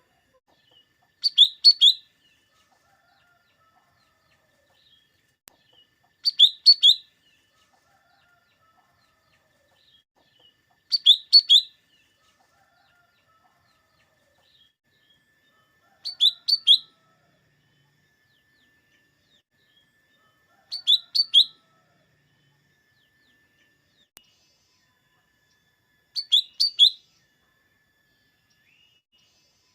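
Cucak ijo mini (lesser green leafbird) singing short, high phrases of three or four quick notes, repeated about every five seconds, six times in all.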